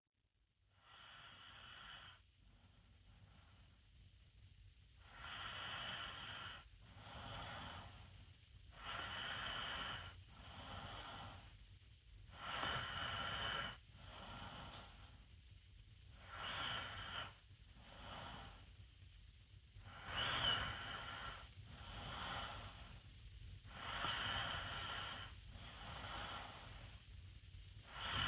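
A 16-year-old boy snoring with his mouth open: rasping breaths in a steady rhythm, a stronger snore about every four seconds with a softer breath between.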